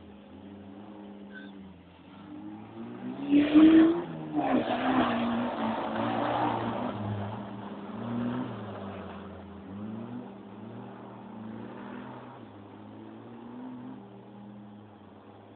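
Toyota KE30 Corolla's engine revving hard on a dirt course, loudest as the car passes about three to four seconds in, with a rush of tyre and gravel noise. The revs then rise and fall repeatedly as it slides on and fades away.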